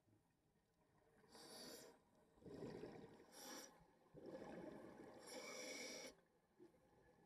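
Faint scuba regulator breathing, heard through the underwater camera housing: a few breaths, each a hissing inhale through the demand valve and then a rush of exhaled bubbles, with short quiet gaps between them.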